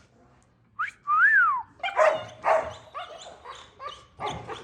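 Pet dogs whining and barking, excited at feeding time: one high whine that rises and falls about a second in, then a string of short yelps and barks.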